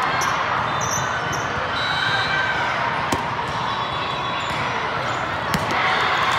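Steady din of a crowded volleyball hall with many courts in play, with sharp volleyball hits about three seconds in and again about five and a half seconds in.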